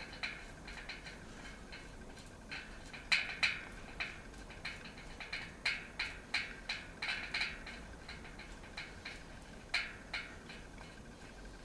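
Irregular light clicks and taps from a bicycle hub axle and its threaded bearing cone being handled and turned by hand, bunched together in the middle.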